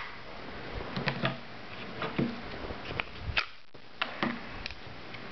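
Kydex holsters and pistols being handled and set down on a cutting mat: a series of irregular sharp plastic clicks and knocks.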